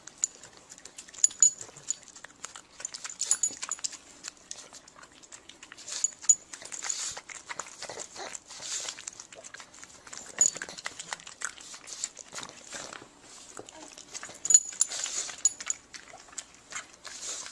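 A dog making a run of short, irregular noises and clicks.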